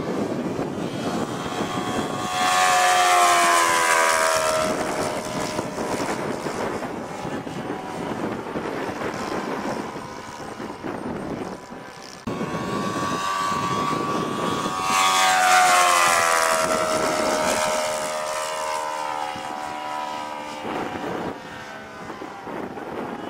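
Radio-controlled scale Hellcat model airplane's propeller engine flying two low passes, each swelling loudest and then dropping in pitch as the plane goes by.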